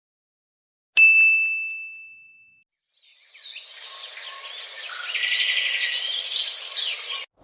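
A single bright ding sound effect about a second in, one clear tone ringing out and fading over about a second and a half. From about three seconds in, a bird ambience of many birds chirping over a hiss follows, cutting off abruptly near the end.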